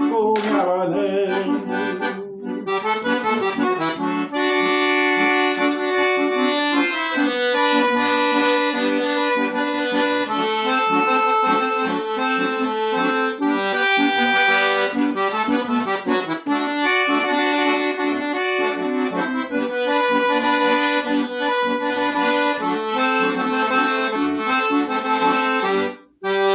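Accordion (gaita) playing an instrumental passage: a melody over held chords, with the bellows-sustained notes running continuously and breaking off briefly near the end before a final chord.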